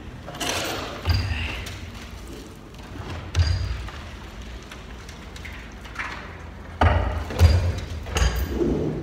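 Wooden silo doors and boards knocking and thudding against each other and the concrete silo wall as they are handled, inside the concrete silo. A handful of separate thuds, the loudest about three and a half seconds in and again around seven seconds in.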